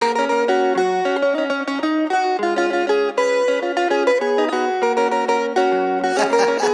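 Background music: a quick plucked-string melody with no drums. A hissing swell builds near the end.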